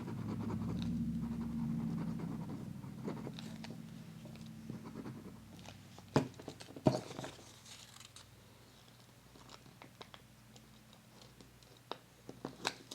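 Paper and craft tools being handled on a work table. A low hum fades out over the first few seconds, then come two sharp taps less than a second apart near the middle, followed by light scattered clicks.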